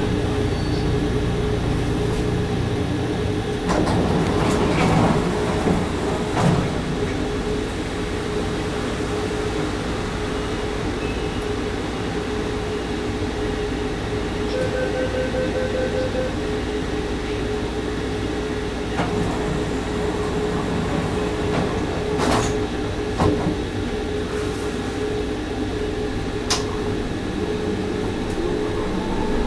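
Interior of a Bombardier Taipei Metro Wenhu Line car standing at a platform: a steady electrical and ventilation hum with a low rumble. A rapid string of beeps comes about halfway through, and a few sharp clicks and knocks come later.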